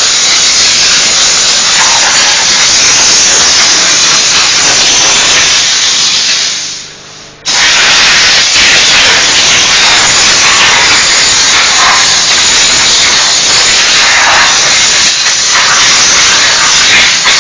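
Diesel steam cleaner's nozzle spraying a loud, steady hissing jet of steam. About six seconds in the spray tails off over about a second, then cuts back in suddenly.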